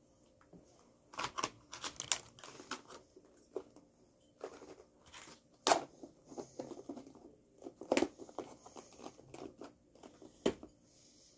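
Homemade playdough being handled together with a plastic food tub: a run of small crinkles and clicks, with a few sharp snaps among them, as the dough is worked and pressed into the tub.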